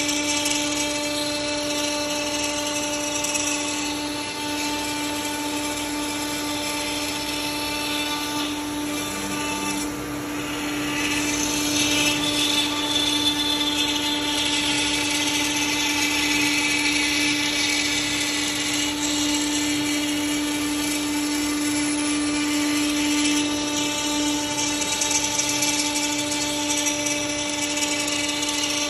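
CNC router spindle running with a steady high whine while the bit cuts wood, the cutting noise growing louder about twelve seconds in.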